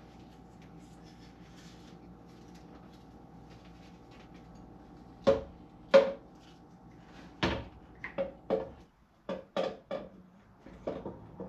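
Irregular metallic clanks and knocks, about a dozen, starting about five seconds in, two of them loud: an aluminium intake manifold and hand tools knocking on the engine as the manifold is set in place and fastened.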